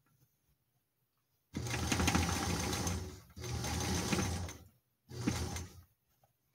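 Electric sewing machine running in three spurts, the first about a second and a half long, then a shorter one, then a brief one near the end, starting and stopping as the foot control pedal is pressed and released. It starts about a second and a half in.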